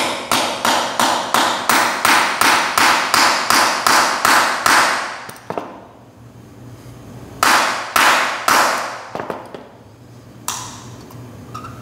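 A hammer strikes a hammer-type lug crimper to crimp a copper ring terminal onto a battery wire. It makes a quick, even run of about eighteen sharp metal blows, some four a second, for about five seconds. After a pause come three more blows close together.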